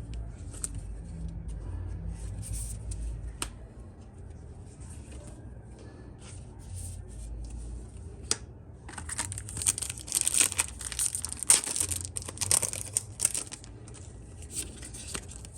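Foil trading-card booster pack being crinkled and torn open, with the loudest rustling and tearing from about nine to thirteen seconds in and lighter handling rustles and clicks before it.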